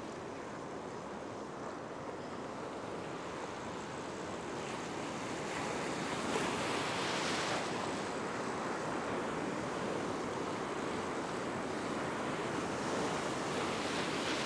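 Ocean surf breaking and washing through the shallows, a steady rush of waves that grows louder about six seconds in.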